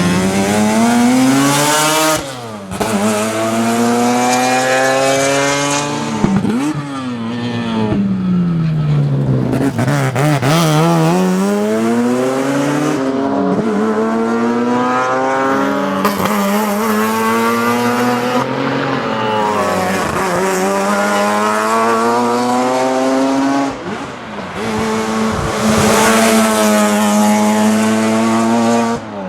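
Mazda RX7 rotary engine at race speed, revving hard through the gears: its pitch climbs, drops at each shift or lift, and winds down and back up through the corners.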